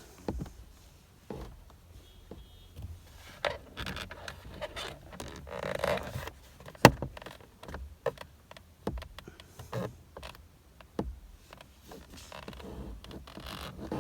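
Hand work on a VW steering wheel's airbag: irregular clicks, taps and short scrapes of plastic and metal parts and a tool being handled, with one sharp click about seven seconds in the loudest.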